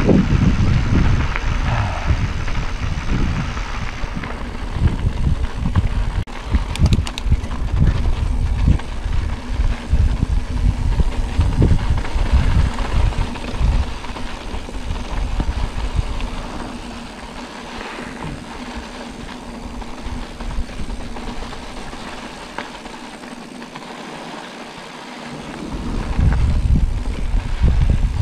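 Wind buffeting the microphone over the rumble and rattle of a bicycle rolling along a dirt track at night-ride pace; it quietens for several seconds past the middle and picks up again near the end.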